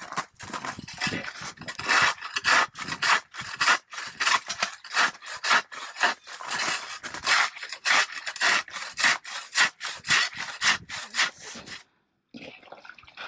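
Hand sawing: rhythmic rasping back-and-forth strokes, about two to three a second, that stop abruptly about twelve seconds in.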